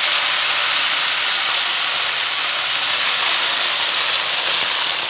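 Hot ghee with fried garlic sizzling as it is ladled over rice: a steady, loud hiss.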